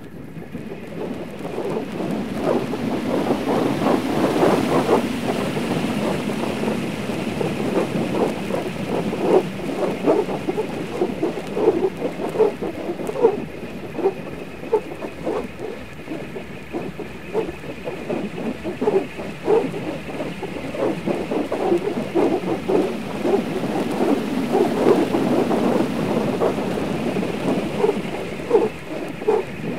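Long elastic bands whirling at high speed, whooshing and fluttering in a dense, continuous noise with many short, uneven swells.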